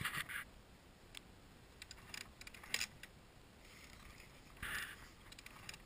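Faint, weak kick-start attempts on a Kawasaki KX85 two-stroke dirt bike that does not fire: two short scuffing strokes, one at the start and one near the end, with a few light clicks between.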